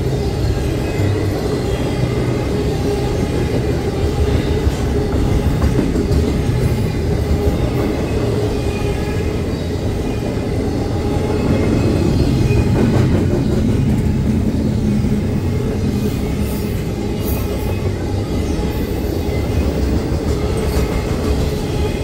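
Intermodal freight cars loaded with containers and trailers rolling steadily past: a continuous rumble of steel wheels on rail.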